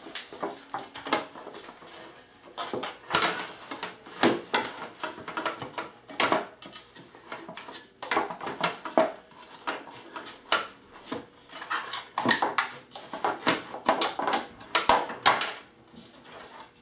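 Irregular clinks, clicks and knocks of a Harley-Davidson luggage rack and backrest bracket being handled, set down and fitted onto a motorcycle's rear fender.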